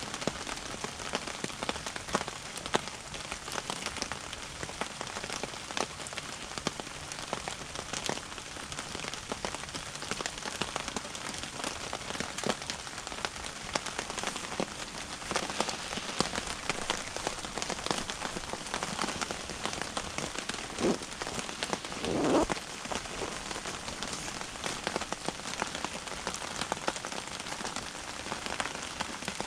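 Steady rain pattering on a surface, a dense even stream of small ticks. About two-thirds of the way through, two brief squeaky sounds stand out, the second the loudest thing heard.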